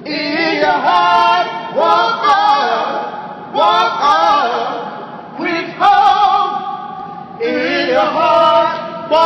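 Men singing loudly together without accompaniment, badly on purpose, in a run of drawn-out phrases about two seconds each.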